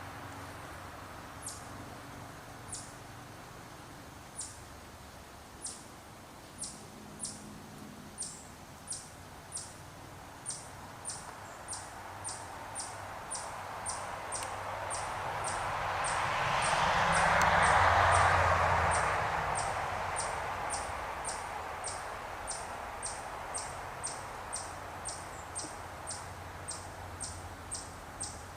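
A small bird's high, thin chirp repeated over and over: sparse at first, then steady at about two a second. A rushing noise swells and fades, loudest about two-thirds of the way through.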